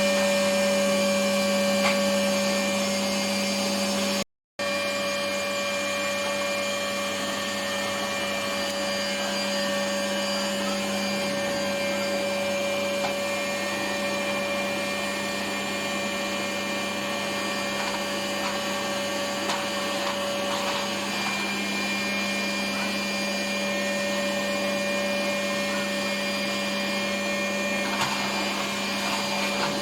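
Vacuum cleaner running steadily, a constant motor hum and whine over rushing air. It cuts out completely for a moment about four seconds in, then carries on unchanged.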